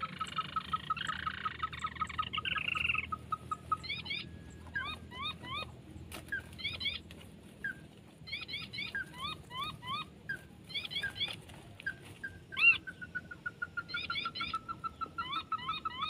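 Crake ('tikusan') calling: a fast train of short, evenly repeated notes, about five a second, broken in the middle by bouts of short rising chirps, then the repeated notes resume near the end.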